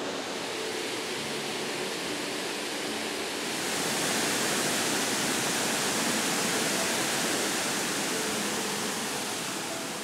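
Steady rush of a wide waterfall pouring over a rock ledge, growing louder and hissier about three and a half seconds in.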